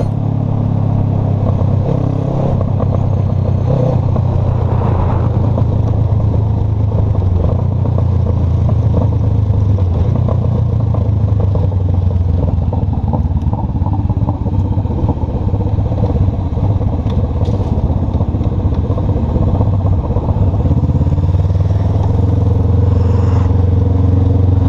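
Honda CB500F's parallel-twin engine running steadily while the motorcycle rides along, heard from the rider's position.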